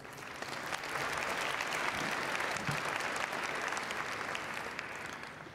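Audience applauding, a dense patter of many hands clapping that builds over the first second and fades near the end.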